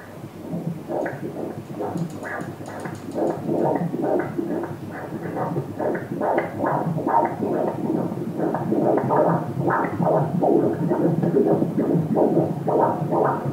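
Pulsed-wave Doppler audio from an obstetric ultrasound machine sampling a 28-week fetus's heart: a rhythmic pulsing swish, between two and three beats a second. It grows louder a few seconds in.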